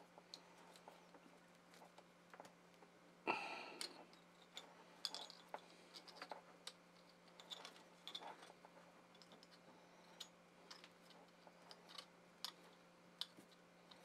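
Faint small clicks and rustles of wires and terminal hardware being handled at the back of an electric motor, with one louder scraping rustle about three seconds in. A faint steady low hum runs underneath.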